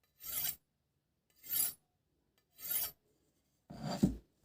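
A golok blade made from chainsaw-bar steel being drawn along a knife sharpener, four rasping strokes about a second apart, the last ending with a sharp click.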